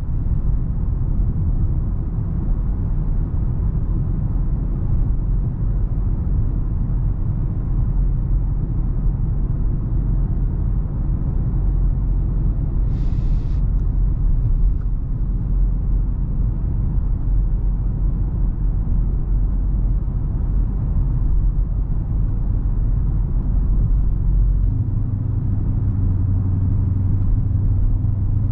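Dodge Charger R/T's 5.7-litre HEMI V8 rumbling low while driving, with road noise. Near the end the engine note settles into a steadier, more even drone.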